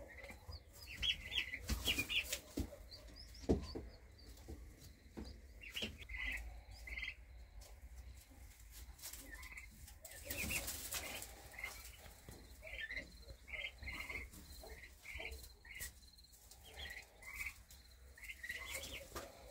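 Newly hatched common pheasant chicks peeping: many short, high chirps, repeated on and off. A few knocks and rustles in the wood shavings come in between, the loudest rustle about ten seconds in.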